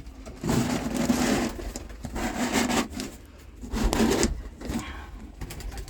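A wooden pigeon nest box being opened and handled: wood rubbing and scraping in three bursts of about a second or less.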